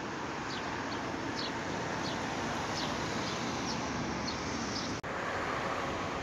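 Steady outdoor city noise of road traffic and wind, with about ten short, high bird chirps through the first four seconds. The sound drops out for an instant about five seconds in.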